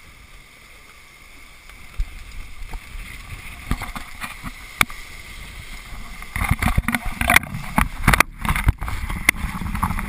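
Mini 6.50 racing sailboat under way: water rushing along the hull and wind on the microphone. From about six seconds in, knocks and rustling from the onboard camera being handled grow louder.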